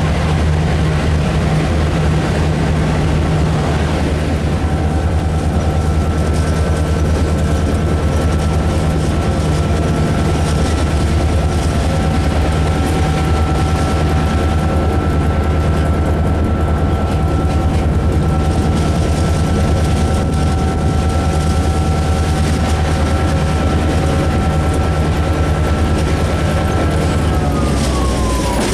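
Diesel locomotive engine running steadily under power, heard from inside the cab, a deep drone with a steady whine above it. Near the end the whine slides down in pitch and the deep drone drops away as the engine throttles back.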